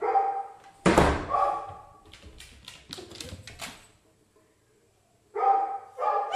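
A door thunks shut about a second in, followed by a few sharp knocks or clicks. A dog barks at the start and again near the end.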